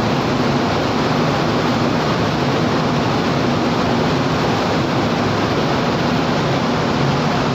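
Steady rushing noise of wind and water aboard a moving cargo ship, with a low steady hum from the ship's engine underneath.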